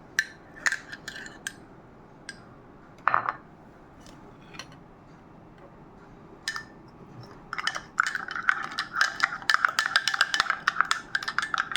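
Spoon stirring in a cup, clinking quickly and steadily against its sides from about eight seconds in; before that, a few separate clinks and taps.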